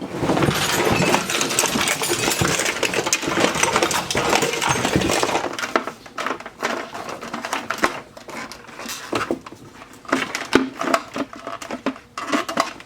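Vintage sewing machine parts and foot pedals being rummaged through in a big box: about six seconds of dense metal clattering and clinking, then scattered knocks and clicks as single pieces are handled.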